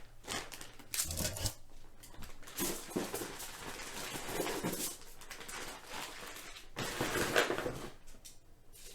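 Plastic bag rustling and light handling noises in irregular bursts as oiled, seasoned potato rounds are laid out on a baking sheet.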